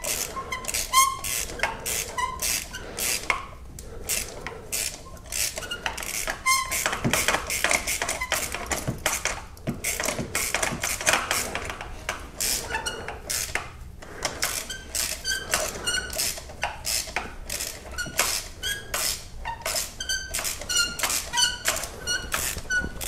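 Hand ratchet clicking over and over as it is swung back and forth, with short squeaks in between, while a spark plug is slowly unscrewed from the cylinder head with a 14 mm thin-wall spark plug socket on a long extension.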